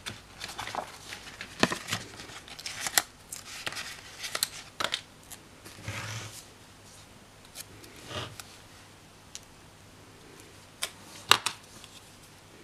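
Paper planner pages and a sticker sheet being handled, with rustling, flapping and scattered sharp taps and clicks of fingers and paper on a hard tabletop. A faint steady hum from audio speakers left on runs underneath.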